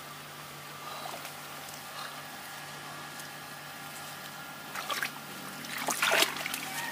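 Shallow muddy ditch water sloshing and splashing as hands work a net through it, quiet at first and with louder splashes in the last two seconds. A faint steady low hum runs underneath.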